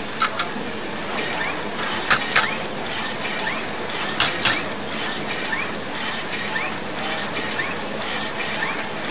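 Automatic chip-assembly machine working on a diced wafer, over a steady machine hum. A few sharp mechanical clicks sound in the first half, and a short rising chirp repeats about every three-quarters of a second after that.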